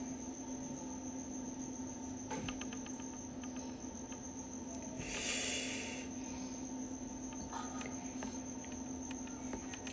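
A man smoking a hand-rolled smoke: faint ticks a couple of seconds in, then a breathy rush of exhaled smoke about five seconds in. A steady high whine and a low hum run underneath.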